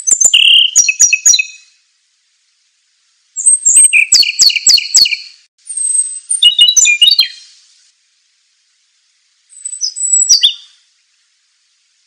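A songbird singing in four short, loud bursts of song, each a quick run of sharp, high whistled notes and trills, with pauses of a second or so between them.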